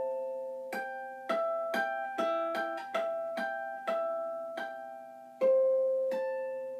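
Godin MultiUke tenor electro-acoustic ukulele played through a Cornell custom Class A valve acoustic amplifier, with the Boss AD-2 acoustic preamp switched off. About a dozen single picked notes, each ringing out and fading, with a louder note about five and a half seconds in.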